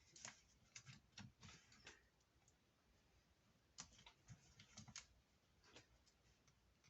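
Faint, scattered small clicks and taps of fingers and nails working at a laptop's internal battery connector, which is stuck and hard to unplug. The clicks come in two clusters, one at the start and another around four to five seconds in.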